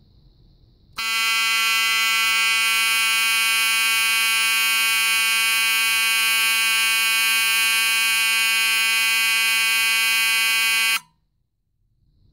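Wheelock 34-6 fire alarm horn, run on 6 volts DC, sounding one steady, continuous blast of about ten seconds that starts about a second in and cuts off suddenly.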